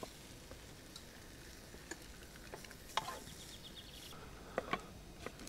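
Utensil scraping and knocking inside a non-stick Trangia cooking pot as scrambled eggs are scraped out onto a plate. It comes as scattered short scrapes and clicks, the sharpest about three seconds in and a quick pair near the end.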